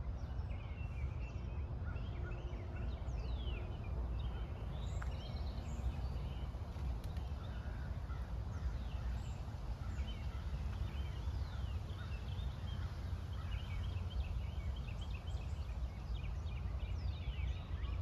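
Several birds chirping and calling, with short chirps and quick downward-sliding whistles throughout, over a steady low rumble.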